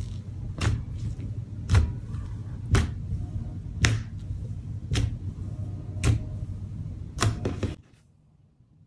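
Fingers pressing and poking into cloud slime made from instant snow with foam beads, a sharp click at each press about once a second over a low rustle. The sound stops abruptly about eight seconds in.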